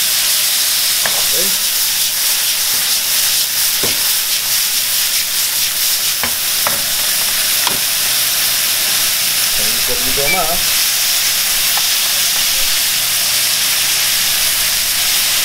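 Thick bolognese sauce sizzling steadily in an aluminium frying pan over a gas burner turned slightly down, with a few sharp clinks and scrapes of a metal spoon against the pan as it is stirred.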